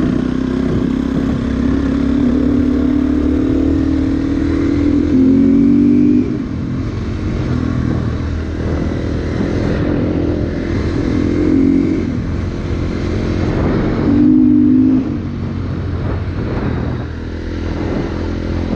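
KTM EXC 350 single-cylinder enduro motorcycle engine running under way, its pitch climbing as the throttle is opened and dropping back between surges. The loudest surges come about five seconds and fourteen seconds in.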